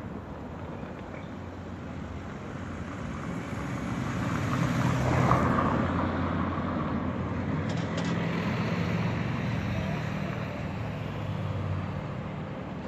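Car on the move: engine and road noise, swelling to its loudest about five seconds in, with a steady low engine hum.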